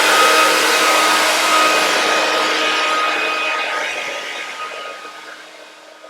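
Hair dryer running: a steady rush of air with a high whine from its motor, gradually getting quieter over the last few seconds.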